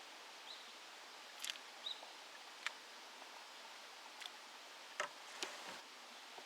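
Quiet outdoor ambience: a faint steady hiss with scattered light clicks and two brief high chirps.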